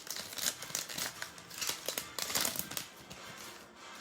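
Plastic trading-card pack wrapper crinkling and rustling in the hands in irregular bursts, as a pack is handled and opened.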